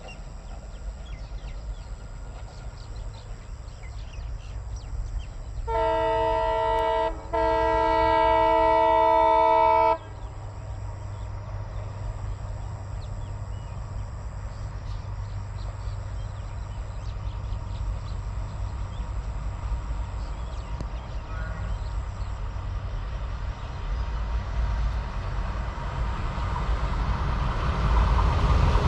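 Horn of an approaching ALCo WDM 3A diesel locomotive: a short blast and then a longer one of about two and a half seconds, several notes sounding together. After it, the locomotive's engine and the train's rumble grow steadily louder as it nears.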